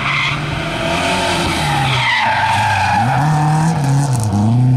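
Rally car engine revving hard, its pitch climbing and dropping in steps through gear changes, with tyres skidding on loose gravel.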